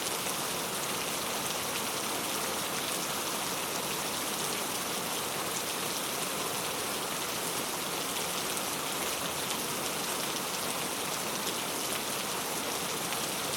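Heavy rain falling steadily: an even hiss with fine pattering of drops and no let-up.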